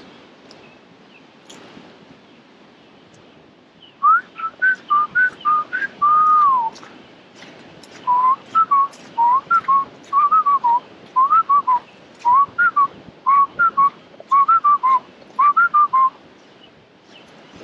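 A man whistling a tune in short notes, starting about four seconds in. One note is held and slides down in pitch.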